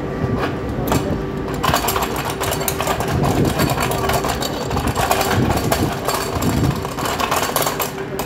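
MI2N (Z 22500) double-deck electric multiple unit standing at the platform, its onboard equipment running with a steady hum and a held mid-pitched tone. A crackly hiss joins about a second and a half in.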